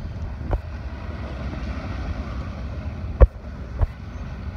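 A pack of track bikes riding over the wooden velodrome boards, a steady low rumble. A few sharp knocks cut through, the loudest a little over three seconds in.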